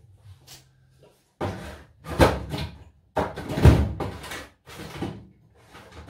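Tools being rummaged through and knocked about while a screwdriver is fetched. There are several clattering knocks in a row, the loudest about two and three and a half seconds in.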